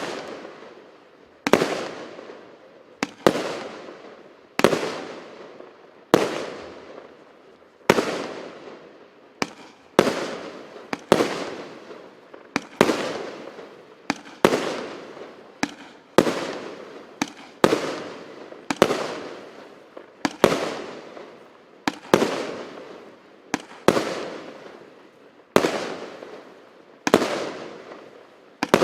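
A 25 mm consumer fireworks cake firing shot after shot, with sharp bangs about once a second. Each bang trails off in a short fading rush before the next.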